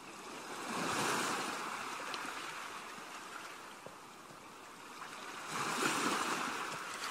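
Ocean surf: waves washing in, swelling once about a second in and again near the end.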